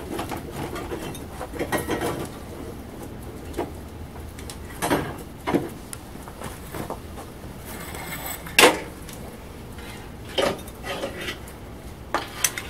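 Irregular metal clanks and knocks of tools and hardware being handled, the loudest about two-thirds of the way through, over a steady low rush.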